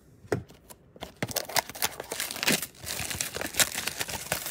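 Plastic shrink wrap being torn and crinkled off a trading-card blaster box, a few light clicks and then a dense crackle from about a second in.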